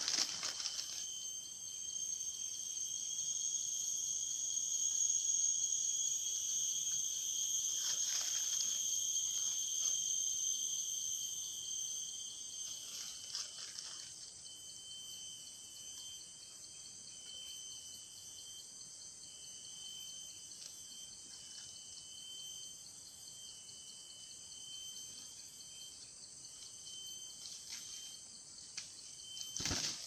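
Steady, high-pitched drone of an insect chorus, louder for the first dozen seconds and then quieter with a pulsing note. A few soft rustles come around 8 and 13 seconds in, and a short burst of noise just before the end.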